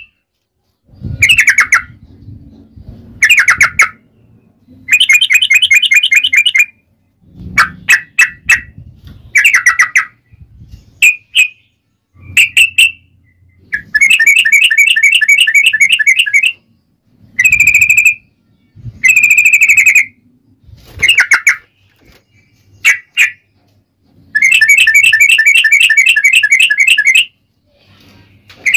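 Yellow-vented bulbul (trucukan) singing loudly: short bubbly phrases repeated every second or two, broken up three times by long rapid trills of two to three seconds (the 'ropel panjang' song type).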